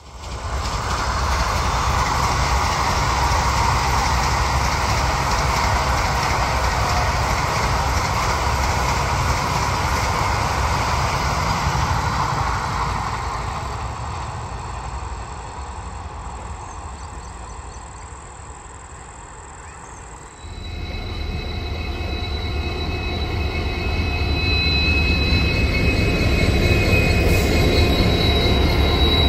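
Vande Bharat Express electric train set running past: steady rail rumble and wheel noise with a ringing hum, fading away over several seconds. Then, after an abrupt change about twenty seconds in, a deep rumble of another train grows louder, with thin steady high-pitched tones over it.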